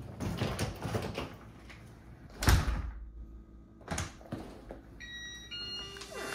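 Apartment front door swinging shut with one loud thud about two and a half seconds in, followed by two sharp latch clicks. Before it, clothes and a bag rustle; near the end, music fades in.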